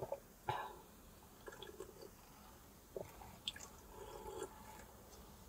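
Faint sips, swallows and lip smacks as a cold drink is drunk straight from the rim of a plastic cup, a handful of short mouth sounds spaced out over several seconds.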